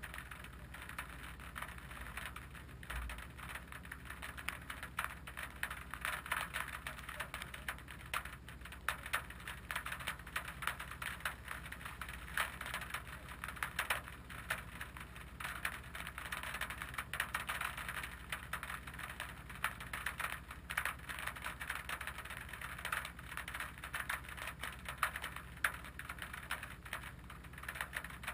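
Rain pattering on the hood-mounted camera and the car's bonnet: a dense, irregular ticking over the low, steady hum of the car's idling engine.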